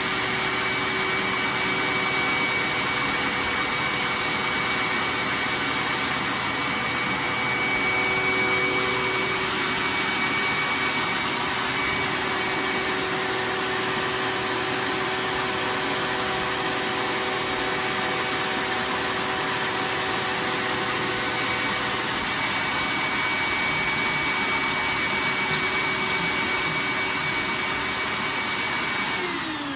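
Loud, steady whir of an electric motor and fan, with a high whine over it, cutting off suddenly just before the end.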